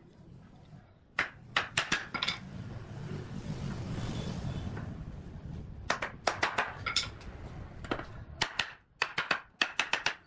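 Groups of sharp wooden knocks as chair rails and posts are tapped and pressed together at their mortise-and-tenon joints, with a stretch of rustling from the wood being handled about halfway through.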